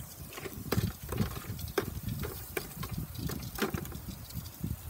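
Metal tongs stirring shrimp in a disposable aluminium pan of butter-beer sauce on a gas grill: irregular clicks and scrapes of the tongs against the foil pan.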